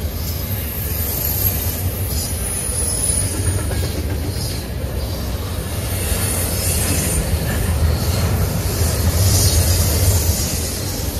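Freight train cars rolling past with a continuous heavy rumble, wheels squealing high on the rails.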